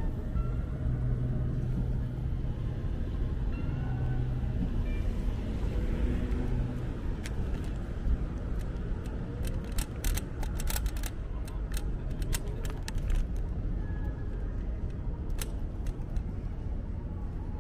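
Steady low road and traffic rumble, as heard riding an electric scooter, with a run of sharp clicks in the middle and one more near the end.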